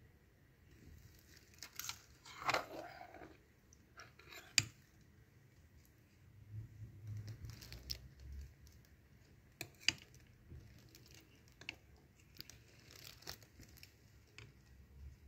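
Faint handling sounds of a metal spoon moving in a soup bowl: scattered light clicks, a brief scrape a couple of seconds in, and a few sharper clinks.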